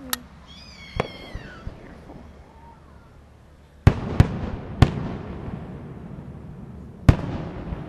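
Aerial fireworks shells bursting overhead as sharp bangs: two lighter ones in the first second, a cluster of three loud booms about four seconds in, and another loud boom near the end. Each is followed by a rolling low echo.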